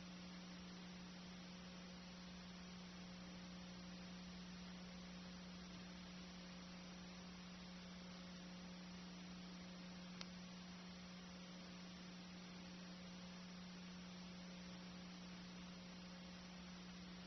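Near silence apart from a steady low electrical hum and faint hiss, with no sound of the game; a single faint click about ten seconds in.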